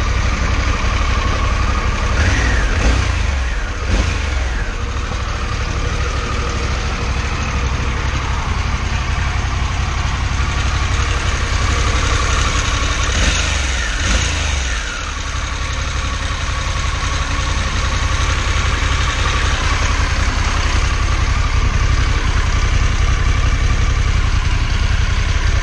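Harley-Davidson Pan America 1250 Special's V-twin engine idling, blipped up in revs and dropping back twice, about two seconds in and again about thirteen seconds in.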